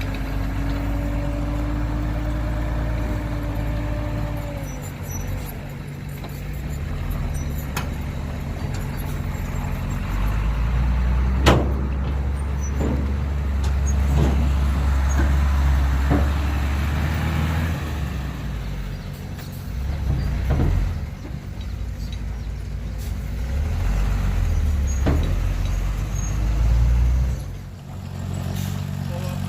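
Heavy diesel engines of dump trucks and earthmoving machinery running with a deep rumble, which swells for several seconds in the middle. A whine rises slightly over the first few seconds, and several sharp metallic knocks come through the rumble.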